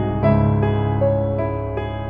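Background music: a slow melody of single notes changing about every half second over held low notes.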